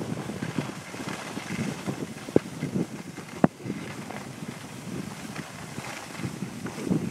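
Skis scraping and sliding over snow during a downhill run, with wind buffeting the microphone, and two sharp clicks about two and a half and three and a half seconds in.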